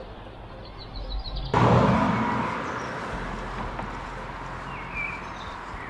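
A car passes close by, starting suddenly about a second and a half in and fading away over the following seconds. A bird chirps briefly near the end.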